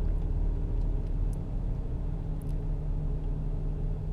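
A steady low background rumble with a faint constant hum, and a few faint light ticks.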